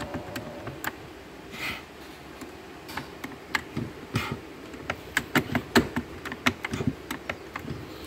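Irregular light clicks and knocks, coming thickest about five to six seconds in, from hands working the shifter and controls in a vehicle cab.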